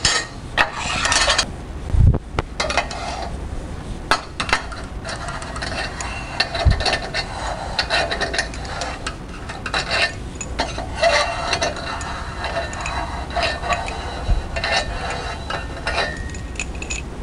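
Flathead screwdriver pushing the pins out of a sheet metal brake's handle: irregular metal clinks and scraping as the pins come loose and knock together in the hand, with a few dull knocks.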